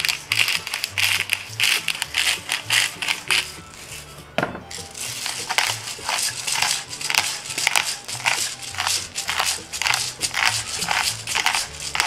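Hand-twisted salt and pepper grinders grinding seasoning, a fast run of gritty clicks with a short break and a single knock about four seconds in. Soft background music with low notes runs underneath.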